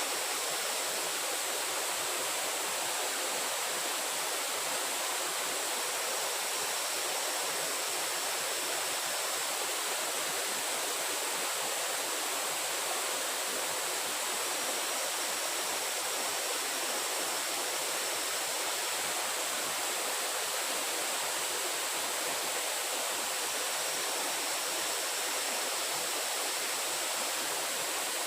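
Steady, even rushing of running water, with a faint high tone held above it.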